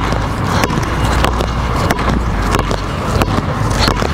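Two basketballs dribbled hard on a hardwood gym floor. The bounces come in a steady rhythm, a strong one about every two-thirds of a second with lighter ones between.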